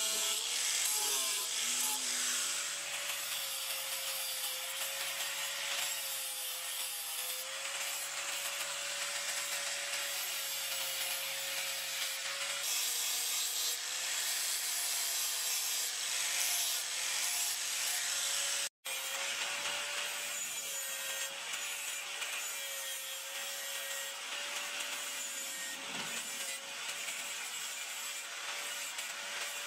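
Handheld electric angle grinder running with its abrasive disc grinding a steel knife blade: a steady motor whine that wavers slightly in pitch as the disc is pressed, over a harsh grinding noise. The sound drops out for an instant about two-thirds of the way through, then carries on.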